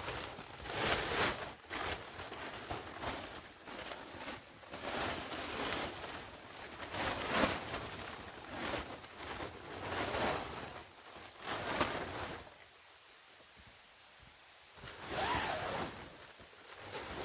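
A large tarp rustling and crackling in repeated swishes as it is shaken out and hauled over a paracord ridgeline, with a brief lull about two-thirds of the way through before one more burst.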